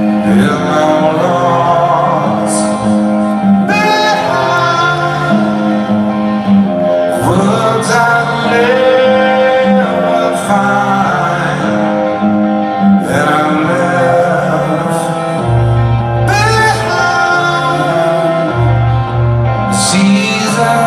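Rock band playing live in an arena, recorded from the crowd: a male singer's phrases over held guitar chords, with a heavier bass line coming in about two-thirds of the way through.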